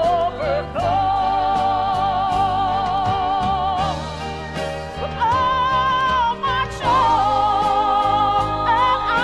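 Gospel music from a 1970s vinyl LP: long held notes with vibrato over a band backing, easing off briefly midway before building again.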